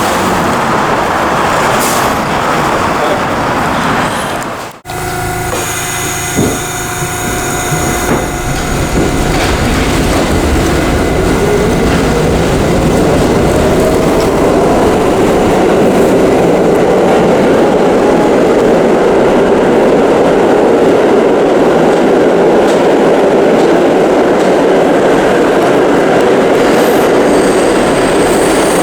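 Street traffic noise, then after an abrupt cut about five seconds in, a New York City subway train running, with a loud steady rumble and a hum that rises in pitch and then holds steady.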